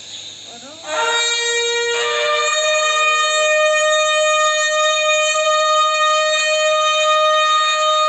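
Shofar blown in one long blast: after a faint breathy rising start, the horn's note sounds about a second in, steps up to a higher pitch about two seconds in, and is held steady from there.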